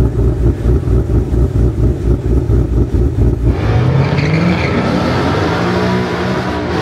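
Car engine running with a rhythmic low pulsing, then revving up about three and a half seconds in, rising in pitch and growing rougher.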